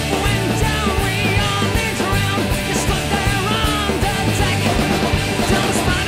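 Background punk rock music: a full band playing at an up-tempo, steady beat.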